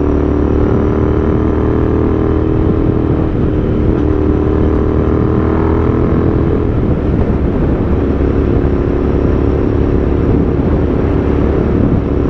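Royal Enfield Continental GT 650's parallel-twin engine running steadily at cruising speed, its even engine note over a dense low rumble of wind and road noise.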